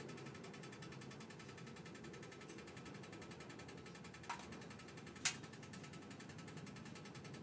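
Steady low background noise in a BMW F31 Touring, with two short sharp clicks about a second apart near the middle, the second louder: the rattle the owner is trying to pin down.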